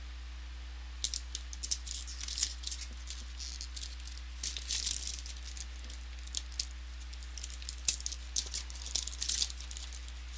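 Football trading cards and their pack wrapping being handled, with quick irregular crinkling and clicking from about a second in until near the end. A steady low electrical hum runs underneath.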